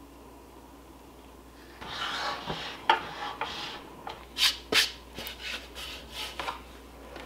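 Parts of a Hoop Master hooping station being handled: starting about two seconds in, hard plastic and metal pieces rub and slide against each other and the mat, with a sharp click, then a string of short scrapes.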